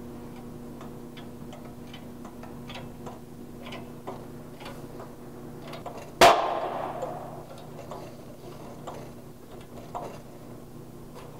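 Shop hydraulic press forcing a control arm bushing into its bracket, with light irregular clicks as it is worked. About six seconds in comes one sharp, loud bang that rings out for about a second: the press-fit bushing suddenly giving and moving under the ram.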